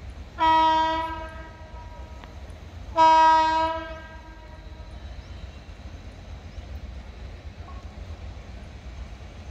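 Horn of an approaching WAG-9 electric freight locomotive sounding two short blasts about two and a half seconds apart, each a single steady chord that tails off, over a steady low rumble.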